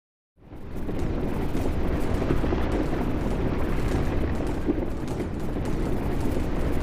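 Earthquake rumble sound effect: a dense, steady low rumbling with faint crackling that fades in after a brief dead silence at the start.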